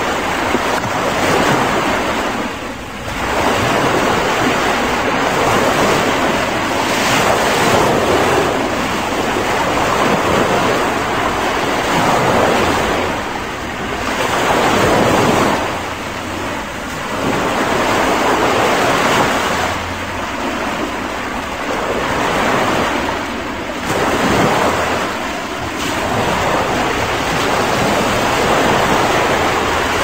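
Small surf breaking and washing up a sandy beach: a continuous rush of water that swells and eases every few seconds.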